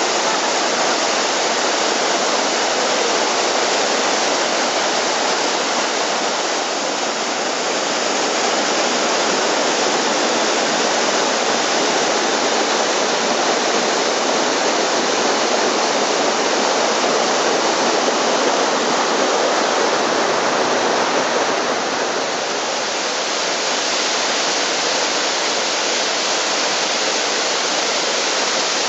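Waterfall cascading down a rocky mountain stream: a steady, full rush of falling and splashing water.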